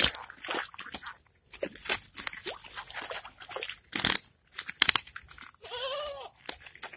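A quick, irregular run of sharp slaps and crackles, with one short animal call that rises and falls about six seconds in.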